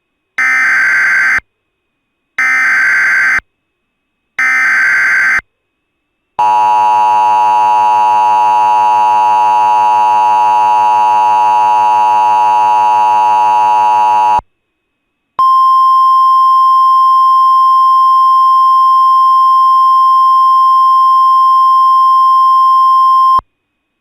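Emergency Alert System header: three short bursts of data tones, each about a second long. Then comes the two-tone EAS attention signal, held steady for about eight seconds, and after a short gap a steady single-tone weather radio alert tone for about eight seconds more. Together they open a flash flood warning.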